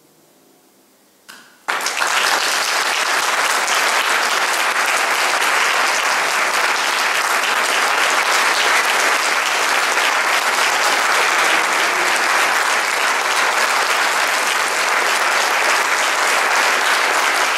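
A lone clap about a second in, then a concert audience breaks into applause and keeps clapping steadily.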